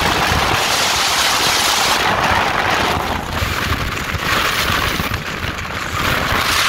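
Wind rushing over the microphone and spray hissing off the hull of a 42-foot Fountain Lightning powerboat running at speed, with a low rumble underneath. The hiss surges and eases several times.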